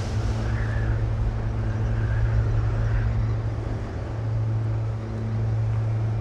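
Steady low droning hum under a windy hiss, with a few faint wavering high tones in the first three seconds.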